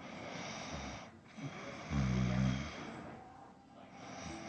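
A sleeping person snoring: breathy breathing, then one low snore lasting just under a second about two seconds in, then softer breathing.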